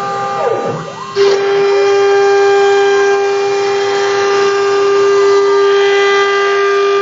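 Homemade CNC router's stepper motors whining. For about the first second the pitch sweeps up and back down as the axes speed up and slow down, then a steady whine sets in and holds, with a fainter tone gliding slowly underneath as another axis changes speed.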